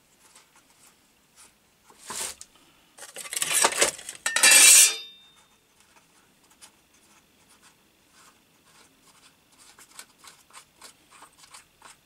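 Plastic air filter cover on a small petrol engine being worked loose and pulled off by hand: scraping and clattering of plastic, in a short burst about two seconds in and louder bursts between three and five seconds, then light clicks and ticks.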